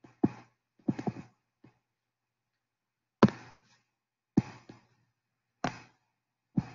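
A few brief, separate voice sounds: one short syllable right at the start, another about a second in, then three more spaced about a second apart from a little past three seconds in, with silence between.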